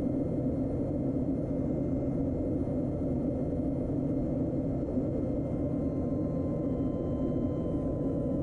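Steady low drone of aircraft engines in flight, even throughout with no change in pitch.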